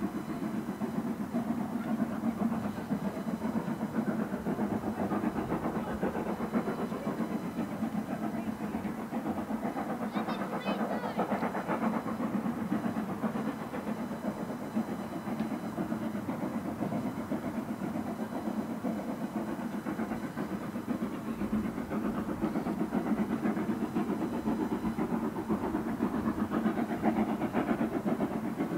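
A steady low mechanical rumble with a fast flutter, holding an even level, with a brief high chirping squeal about ten seconds in.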